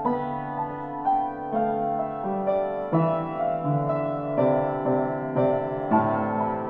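Upright piano played slowly, a new note or chord struck roughly every half second to a second and left to ring.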